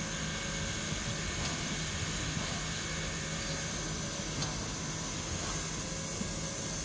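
Soviet class L steam locomotive standing with steam up, giving a steady hiss over a low hum, with a few faint clicks.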